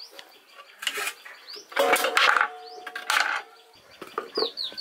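Stainless steel kitchen utensils and a wooden board being set down: several clanks and knocks, the one about two seconds in leaving a steel vessel ringing for over a second. Birds chirp near the end.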